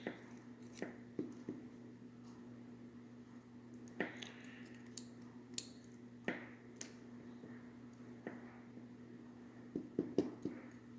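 Scattered light clicks and clinks of small metal lock pins and parts from a disassembled dimple lock being handled and set down, the sharpest a little past halfway and a quick run of clicks near the end, over a steady low hum.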